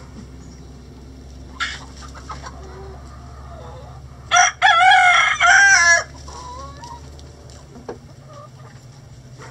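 A rooster crows once, a short note followed by a crow of about a second and a half in several parts, the loudest sound here. Hens cluck softly around it.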